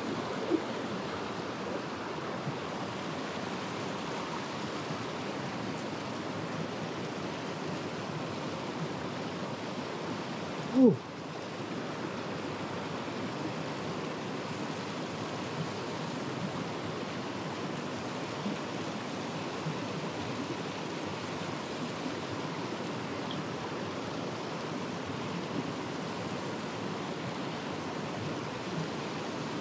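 Mountain stream rushing over rocks and small cascades, a steady even rush of water. About eleven seconds in, a brief loud sound drops quickly in pitch.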